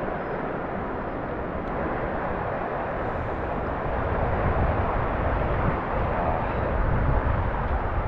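Mountain stream water rushing steadily over rocks.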